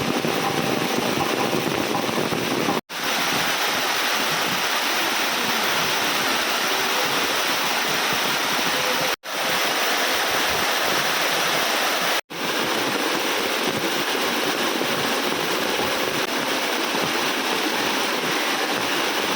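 Heavy rain pouring down with water running, a steady dense hiss. It cuts out for an instant three times.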